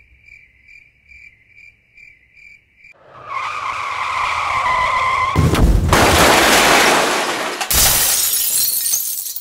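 A high electronic beep pulsing about twice a second, then a rising rush of noise that swells into loud hissing, static-like noise with two heavy jolts.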